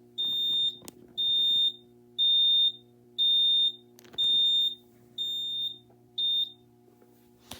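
Notifier AFP-200 fire alarm control panel's built-in sounder beeping on power-up: seven high, single-pitched beeps about one a second, each about half a second long, that stop near the end. A faint steady hum runs underneath.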